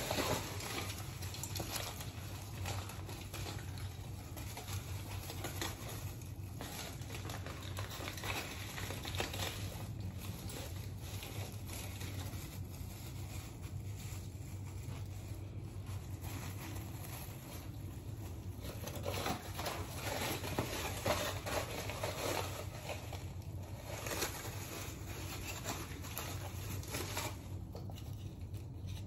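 Gloved hands rubbing and scrunching wet hair on a mannequin head: irregular soft rubbing and squishing, a little louder about two-thirds of the way through, over a steady low hum.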